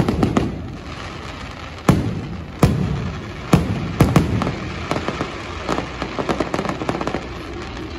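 Aerial fireworks shells bursting overhead: a string of sharp, loud booms through the first half, each trailing off in an echo, then a rapid run of lighter crackling pops in the second half.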